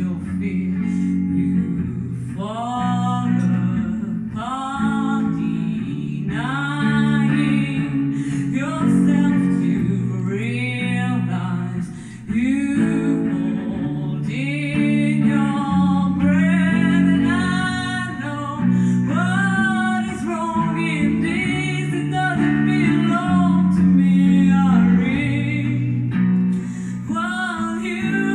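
A woman singing live to an electric guitar accompaniment: a wavering, held vocal melody over sustained guitar chords, with a short break about twelve seconds in.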